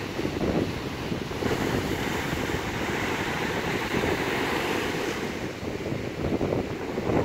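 Sea waves surging up and draining back over a steep cobble beach, the rounded stones rolling and rattling against each other in the wash. The sound is continuous, swelling again near the end with a fresh surge.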